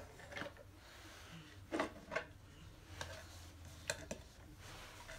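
Scattered light clicks and knocks, about six in all, from small wooden toy and flat-pack board pieces being handled and set down.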